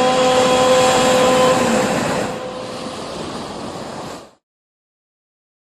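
Outro vocal chant holding a long note over a steady rushing noise. The chanted note ends about two seconds in. The noise fades somewhat, then cuts off abruptly a little over four seconds in, leaving silence.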